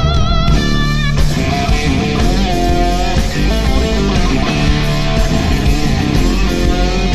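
Live instrumental rock: an electric guitar leads with held notes that waver in pitch, over the band's bass and backing.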